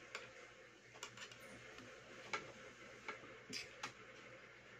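A metal spoon clicking and tapping against plates as food is served onto rice: several light, irregularly spaced clicks.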